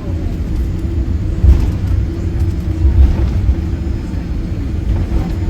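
Boeing 787-8 cabin noise heard from a passenger seat: a steady low rumble with a constant hum, and two brief thumps about one and a half and three seconds in.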